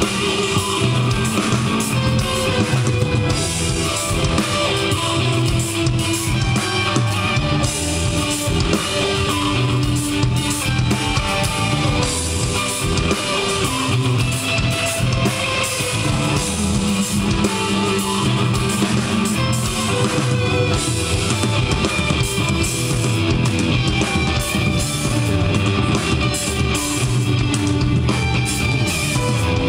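A live rock band playing an instrumental passage through a PA: distorted electric guitars over a drum kit, steady and loud throughout.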